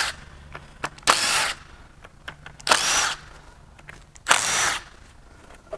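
Cordless impact wrench spinning valve-cover bolts out of a GM 5.3L V8's aluminum cylinder head, in three short runs of about half a second each, roughly a second and a half apart. Light clicks of handling come between the runs.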